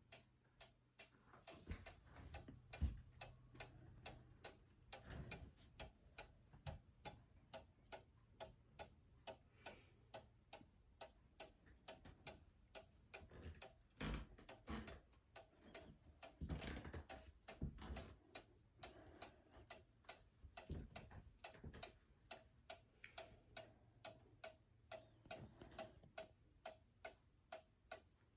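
One-day cuckoo clock movement ticking with a quick, even tick-tock, about two and a half ticks a second, faint throughout. A few low thumps come about three seconds in and again around the middle.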